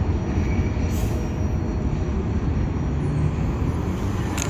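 Steady low rumble of a freight train moving away down the line. A road vehicle's engine hum comes in near the end.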